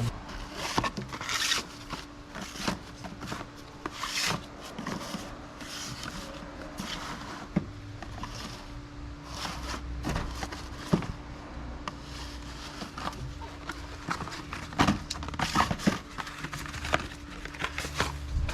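Irregular clicks, scrapes and rustling of parts and tools being handled during oil-filter work on a car, over a faint steady hum.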